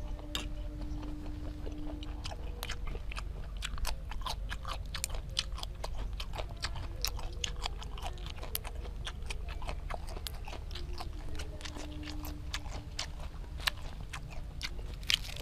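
Close-up chewing of a mouthful of grilled apple snail meat: a steady run of sharp mouth clicks, a few each second.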